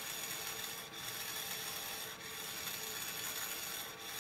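Small AC servo motor and its reduction gear train running steadily with a rasping whir, driven by a magnetic-amplifier servo control amplifier that is working. The whir dips briefly a few times.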